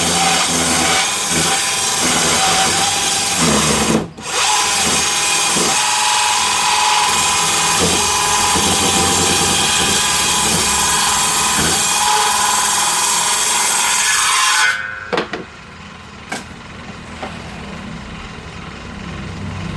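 Power saw ripping timber lengthwise, a loud steady cutting noise. It breaks off briefly about four seconds in, then drops to the quieter sound of the saw running without cutting for the last few seconds.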